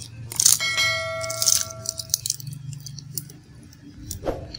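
A short bell-like ding from a subscribe-button animation: one ringing tone with bright overtones, starting about half a second in and dying away after about a second and a half. Around it, crackly crunches of the flaky oven-baked msemen pastry being torn open by hand, at the start and again near the end.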